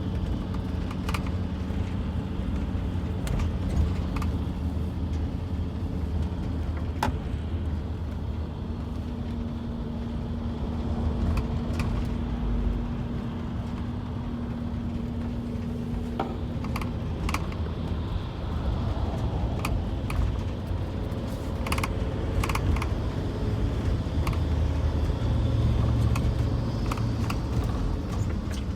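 Car driving: a steady low rumble of engine and road noise, with scattered sharp clicks and rattles.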